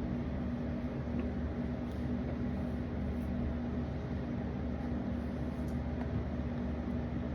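Steady low mechanical hum with a constant low tone, unchanging throughout.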